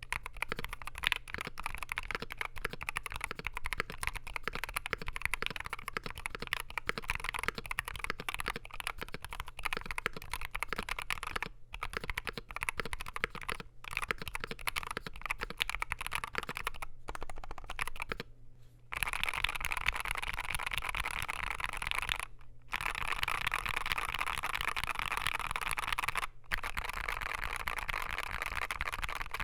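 Continuous typing on a Wooting 60HE keyboard in a Mekanisk Klippe-T case, with an aluminium plate, lubed Gateron Lekker Hall-effect switches and PBT keycaps: a steady stream of keystrokes broken by a few short pauses, growing denser about two-thirds of the way in.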